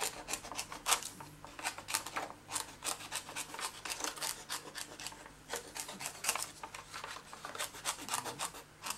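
Craft scissors snipping through thin acetate sheet, cutting round embossed leaf shapes: many short, crisp snips at an uneven pace of about two or three a second.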